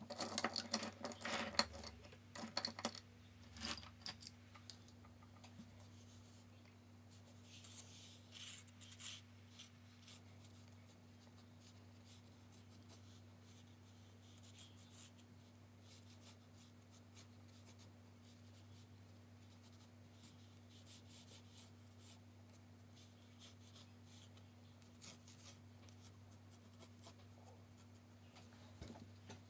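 Pencil sketching on watercolour paper: soft scratching strokes, with louder clicks and rustles of handling in the first few seconds. A faint steady low hum runs underneath.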